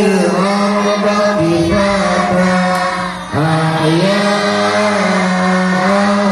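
A group of pupils reciting Quran verses together in unison, chanted to the set melody of the Ummi method during murajaah (memorisation review). The voices break briefly for breath a little after three seconds in, then go on.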